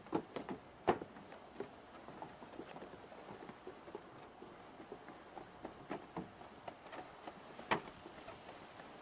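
Irregular light knocks and taps over a faint steady hiss, with a quick cluster at the start, the loudest knocks about a second in and another near the end.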